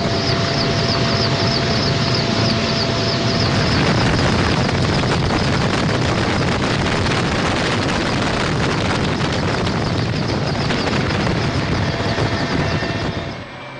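Helicopter rotor and turbine noise during a flood-rescue airlift: a loud, steady rush with a faint rapid beat from the blades, cutting off sharply near the end.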